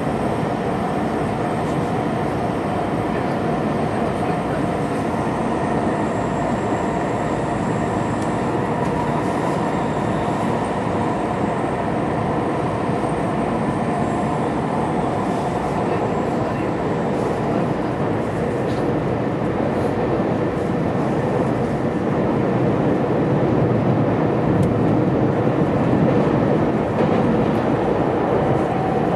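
Running noise of an E2 series Shinkansen heard inside the passenger car: a steady rumble of the train under way with a few faint steady tones over it, growing a little louder in the last third.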